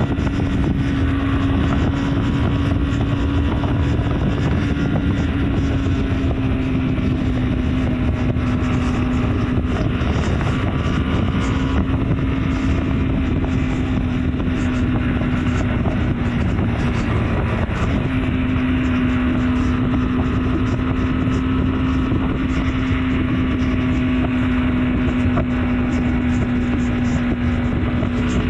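BMW G310 R's single-cylinder engine running steadily at highway cruising speed, its note sagging slightly and picking back up a little past halfway, under steady rushing wind noise on the microphone.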